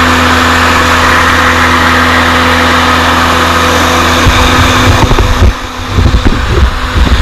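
Bark blower truck's engine and blower running steadily. About four seconds in, irregular low thumps join in and the steady noise briefly dips.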